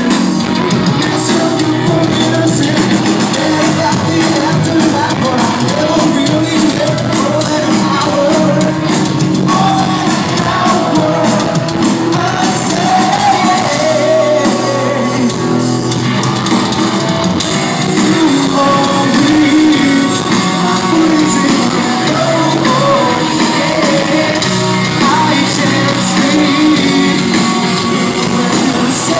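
Rock band playing live, with electric guitars, bass and drums under a singing vocalist, heard from within the audience in a large hall.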